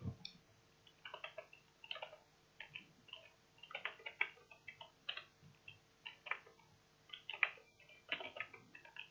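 Computer keyboard typing in irregular bursts of keystrokes with short pauses between them, and a soft thump right at the start.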